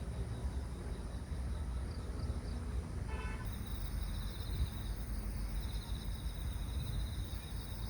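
Outdoor ambience with a steady low rumble, a short car-horn toot about three seconds in, and crickets trilling in repeated bursts from about halfway on.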